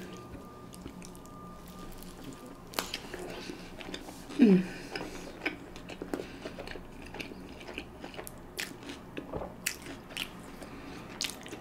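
Close-miked mouth sounds of a person biting and chewing a chicken quesadilla: scattered wet clicks through the whole stretch. About four and a half seconds in there is one short falling voiced hum.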